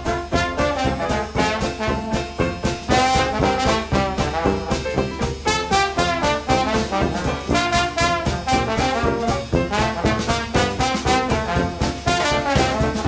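Upbeat background music led by brass, trombone and trumpet, in a jazzy swing style with a steady beat.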